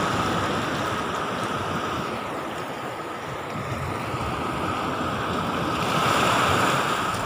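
Sea surf washing onto a sandy beach, a steady rush of noise that swells a little near the end, with some wind on the microphone.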